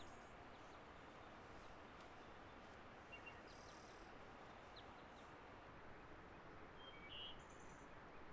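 Near silence: faint steady outdoor hiss, with a few brief, faint high chirps about three seconds in and again near the end.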